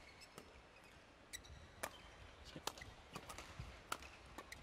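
Scattered sharp taps and short squeaks from players' shoes and movement on a badminton court, at irregular intervals over a faint arena hum.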